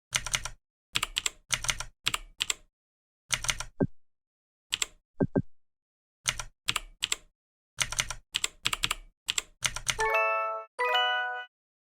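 Computer keyboard keys clicking in quick bursts of typing. A few short falling blip tones come in around four and five seconds in, and two ringing chime tones sound near the end.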